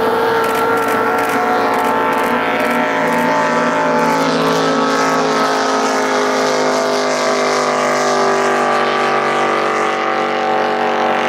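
Racing boat's open engine running at full speed in a steady, unbroken drone, its pitch sagging slightly toward the end as the boat passes.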